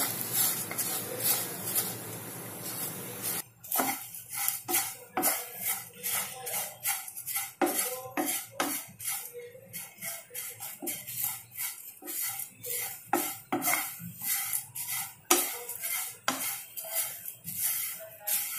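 Wooden spatula stirring and scraping dry flattened rice (poha) around a frying pan as it dry-roasts without oil: a dense rustling scrape for the first few seconds, then separate scraping strokes about twice a second.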